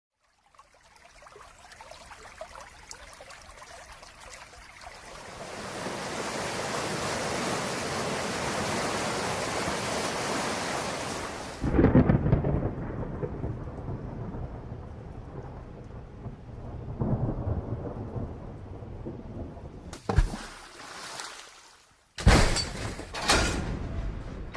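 Thunderstorm: steady rain that grows heavier, then a loud thunderclap about halfway through followed by rolling rumble. Near the end, after a brief silence, a few sharp, loud cracks of a different sound begin.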